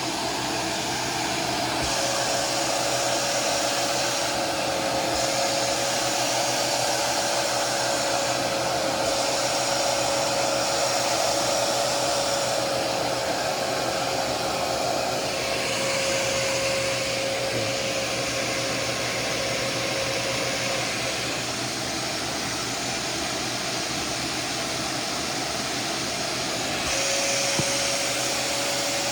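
Hoover Power Dash portable carpet and upholstery shampooer running, its suction motor giving a steady rush of air with a whine that drops out about two-thirds of the way through and comes back near the end. The tone of the rush shifts every few seconds as it works the carpet. It sounds fairly quiet for a carpet cleaner.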